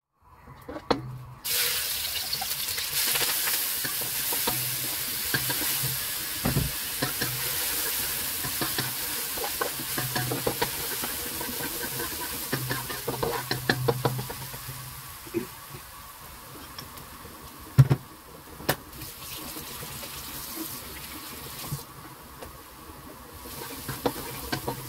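Minced garlic and chilli sizzling in hot oil in a wok, stirred with a spatula that scrapes and clicks against the pan. The sizzle starts suddenly about a second and a half in and is loudest over the first half, then quieter, with one sharp knock of the spatula a little past the middle.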